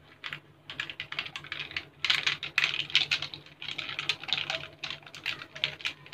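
Ice cubes and a plastic straw clinking against a tall drinking glass as an iced lemon soda is stirred: a run of quick, irregular clicks that starts a moment in.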